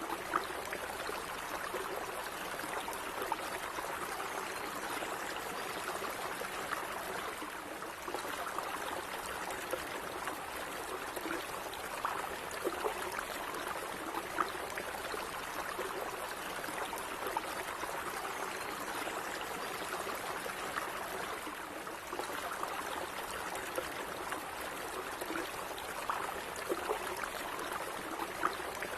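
Small stream of water running and trickling steadily, with light splashes and gurgles.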